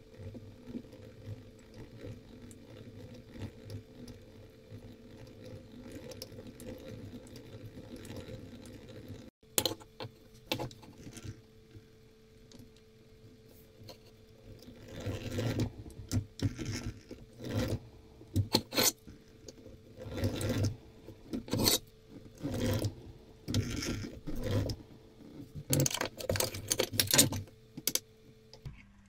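Electric drill running steadily while a twist bit cuts through a brass plate. After a cut about nine seconds in, a countersink bit grinds against the brass in a string of short, loud bursts as it is fed in and backed off. The motor stops near the end.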